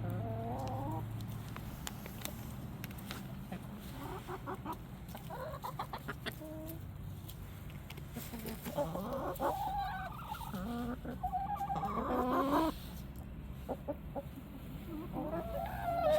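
Chickens clucking in scattered calls, with a dense run of clucks past the middle and another near the end.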